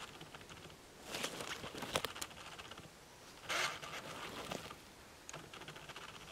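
Handling noise from a shed deer antler being turned in the hands against a jacket: rustling and scraping in two bursts of about a second each, one about a second in and another about three and a half seconds in, with a few light clicks.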